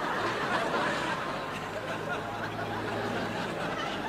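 Audience laughing: many people laughing together at an even level, with no single voice standing out.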